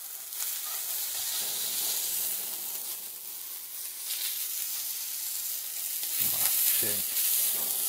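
Beef spider steak searing in a very hot cast-iron pan, a steady sizzle of the meat and its fat.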